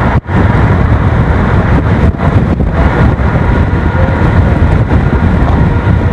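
Car driving, heard from inside: steady road and engine noise with wind rumbling on the microphone. The sound drops out for an instant just after the start.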